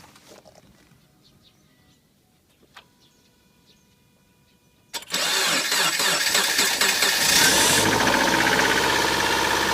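Subaru EJ203 2.0-litre flat-four cranked and catching on a cold winter start about five seconds in, revving up briefly and then settling into a steady, fast idle. It carries the cold-start knocking the owner hears for the first few minutes after a winter start.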